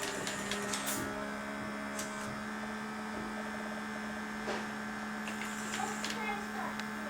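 Small electric motors and gearing of a fischertechnik model running with a steady hum, with occasional sharp clicks.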